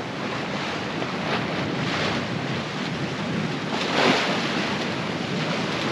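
Sea water rushing and splashing past the hull of a sailboat under way, with wind buffeting the microphone. The rush swells in surges, the strongest about four seconds in.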